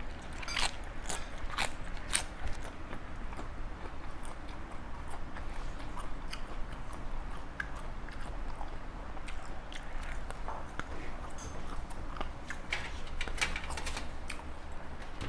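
A person chewing and biting through mouthfuls of a spicy pounded seafood salad, with repeated crisp crunches. The crunches come thickest in the first few seconds and again near the end.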